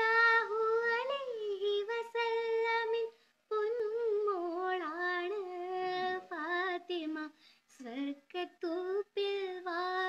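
Young girl singing a Malayalam Muslim Eid song unaccompanied, in long held notes. There is a short break about three seconds in, and shorter broken phrases in the second half.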